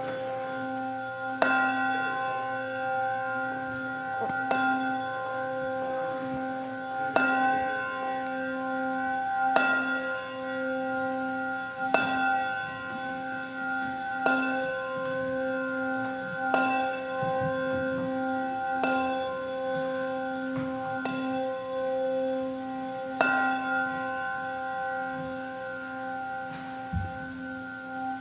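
Handbells rung one note at a time, a strike about every two and a half seconds, each bell left ringing so that several pitches hang on together; all the ringing stops together near the end.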